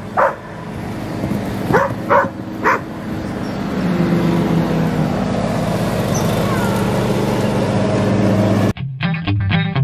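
Dogs barking about four times in the first three seconds over the steady hum of a vehicle engine. Near the end the sound cuts suddenly to electric guitar music.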